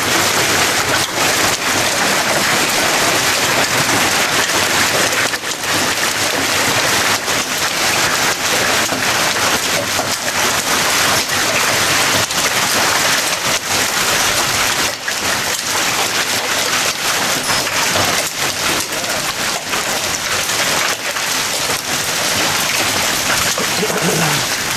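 Hailstorm: a dense, steady patter of hailstones striking the ground and yard, made of countless separate small impacts.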